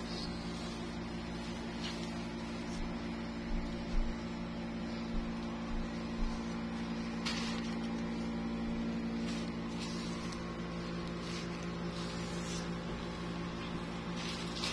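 A steady machine hum with several fixed tones, with a few brief knocks and rustles from hands moving in a cloth-lined cardboard box, the loudest about four seconds in.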